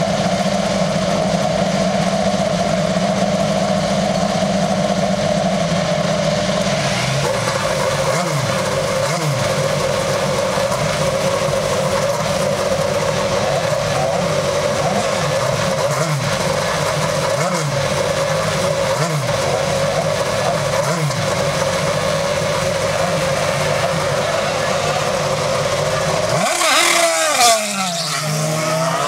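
IndyCar's Honda V8 running at a steady idle in the pit box, then revving hard and pulling away near the end, its pitch sweeping up through the gears and falling off as it leaves.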